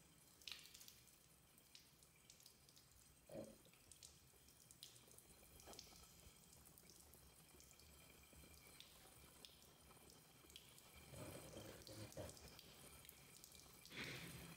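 Faint running tap water with small drips and splashes while a baby monkey is washed clean after soiling its diaper. There are a couple of louder splashing moments near the end.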